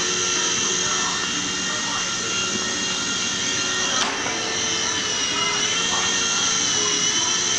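Toy remote-control helicopter in flight: its small electric motor and rotors whirring with a steady high-pitched whine.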